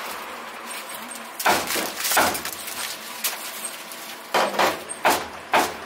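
Aluminium foil crinkling in a string of short rustling bursts as it is handled and folded around chopped roast pork.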